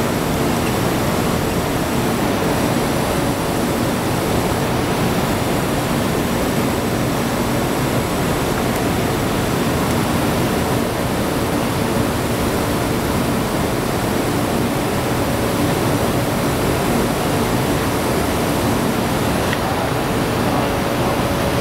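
Beam saw machinery running steadily: an even, loud rushing noise with a faint low hum, unchanged throughout.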